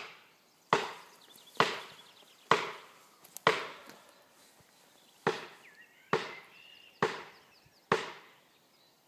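Hammer blows driving felling wedges into the cut of a large tree, about nine sharp strikes at roughly one a second with a short pause about halfway. The wedges are being driven in to tighten the cut and lift the tree toward its intended direction of fall.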